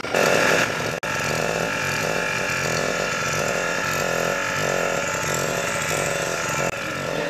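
Motorboat engine running steadily, a dense mechanical clatter with no let-up.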